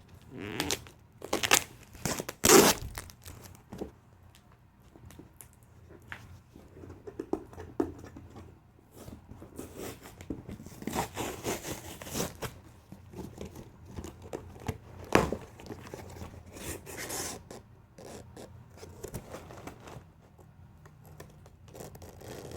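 Cardboard shipping box being pulled and torn open by hand: irregular tearing, scraping and rustling, with a few sharp knocks, the loudest about two and a half seconds and fifteen seconds in.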